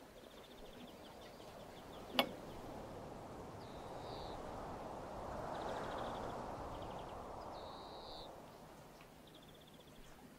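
Outdoor countryside ambience: small birds calling in short, rapid high trills again and again, a single sharp click about two seconds in, and a rushing noise that swells and fades through the middle.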